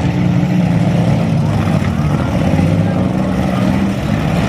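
Engines of several compact demolition-derby cars running and revving, their pitch shifting up and down over a steady mechanical din.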